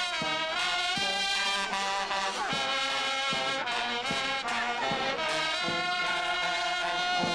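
Village Western-style brass band playing a dance tune: brass melody over a steady drum beat.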